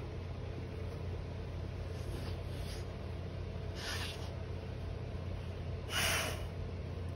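Pregnant pit bull-type dog nesting in her bedding, sniffing and snorting close to the microphone: short breathy snorts about 2.5 and 4 seconds in and a louder one about 6 seconds in, over a steady low hum.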